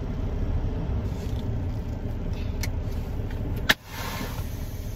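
Semi truck's diesel engine running with a steady low rumble. A sharp click comes a little under four seconds in, followed by a short hiss.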